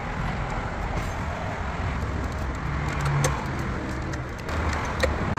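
Steady rumble and hiss of motor-vehicle or traffic noise with a low hum, and a few faint clicks.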